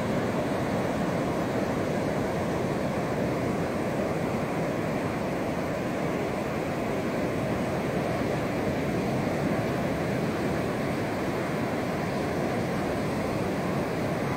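Ocean surf: waves breaking offshore and washing up a flat sandy beach, a steady rush with no clear rise and fall.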